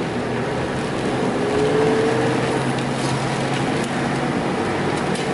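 Car driving along a road, heard from inside the cabin: steady tyre and road noise with a low engine hum underneath.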